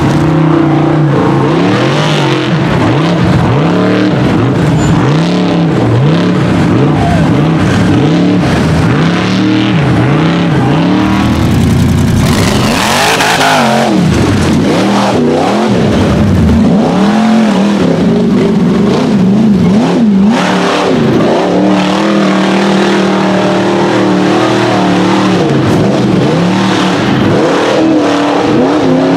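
Rock bouncer buggy engines revving hard in repeated surges, the pitch swinging up and down over and over as the buggies climb a muddy hill with their tyres throwing dirt. About halfway through there is a short rushing noise.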